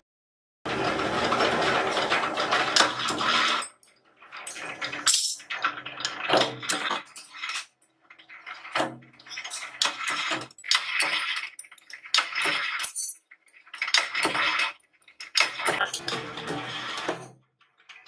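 Carbon-steel latch plates clinking and clattering against each other and against the steel die as they are handled, pressed and stacked. The noise comes in irregular bursts full of sharp metallic clicks, separated by short pauses.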